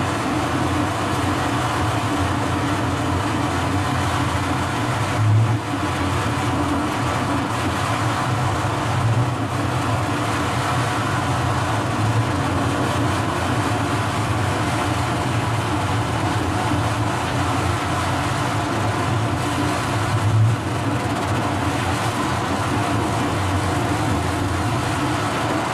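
Excavator-mounted hydraulic wheel saw with a segmented cutting disc grinding a cut into a quarry's rock floor, a steady gritty grinding over the running excavator, with two brief louder surges, one about five seconds in and one near twenty seconds.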